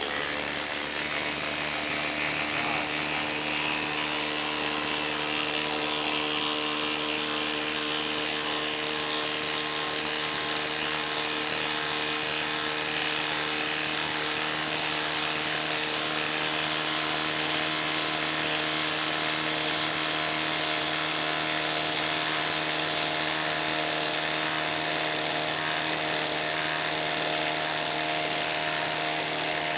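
Milwaukee M18 impact driver, modded with a half-inch anvil, hammering continuously as it drives a long lag screw into a log through a socket. The impacting rattle holds an even level and pitch throughout.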